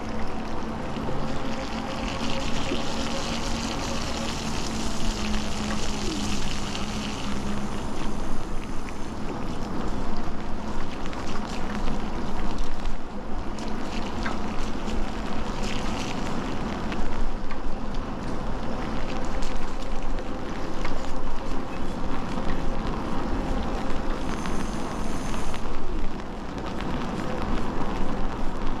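Electric bike riding on a wet paved path: tyres hissing on the wet surface and wind on the microphone, with a steady hum over the first seven seconds or so and a few scattered knocks.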